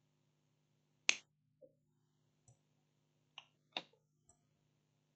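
A few short, sharp clicks and taps, the loudest about a second in and another near four seconds, over a faint steady electrical hum.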